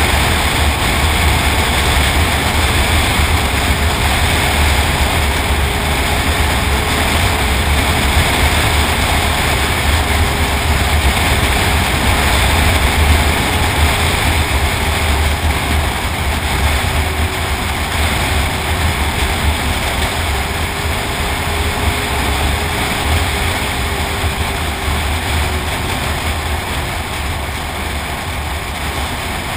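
Snowmobile running steadily at trail speed, its engine note holding nearly constant under a heavy low rumble and a haze of track and rushing-air noise. The sound eases off a little over the last few seconds.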